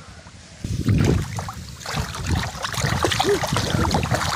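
Shallow stream water rushing and splashing close to the microphone. It comes in suddenly a little under a second in, deep and heavy at first, then settles into a steady splashy hiss.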